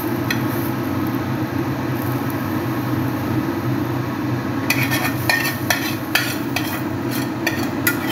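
A metal spoon scraping fried grated carrot out of a non-stick frying pan into a pot of milk, the clinks and scrapes coming thick and fast from about halfway in. A steady low hum runs underneath.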